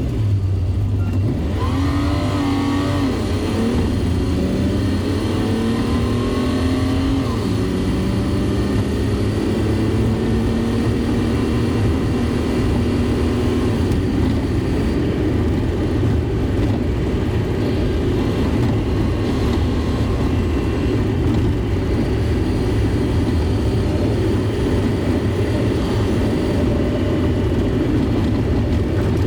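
Mack Granite dump truck heard from inside the cab: its diesel engine pulls with a rising note that drops back at each of a few automatic upshifts in the first several seconds, then settles into a steady drone at cruising speed.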